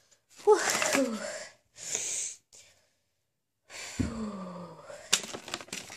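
A woman's voice making short breathy sounds with no clear words: one just after the start and a falling one about four seconds in, with a brief hiss between. Near the end come sharp clicks and crackles from a clear plastic cake container being handled.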